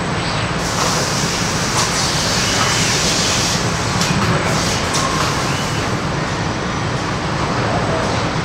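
Steady machinery noise of an automated car-body sealing line, dense and even. Stretches of high hissing lasting about a second come and go, with a few faint short whines from the robots.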